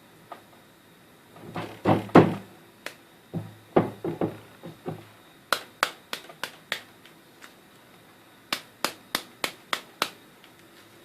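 Rubber mallet striking the freshly wound copper coils of a washing machine motor's stator, pressing them into shape: a few dull knocks, then two runs of quick light taps.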